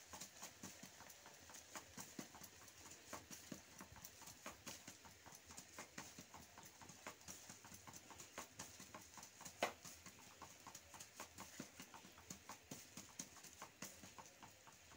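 Faint, irregular taps and clicks, several a second, of hands patting and pressing dough flat on a plastic sheet over a wooden plate, with one louder click about two-thirds of the way through.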